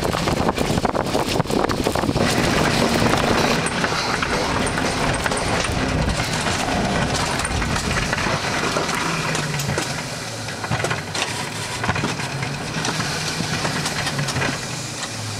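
Bobsled-ride car running along its rail track: a loud, continuous rumble and rattle with many small knocks, easing off somewhat about ten seconds in.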